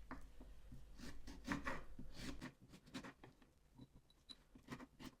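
Light, irregular taps and scrapes of a knife and chopped lemon pieces being moved into a glass jar. They are busier in the first half and thin out after about halfway.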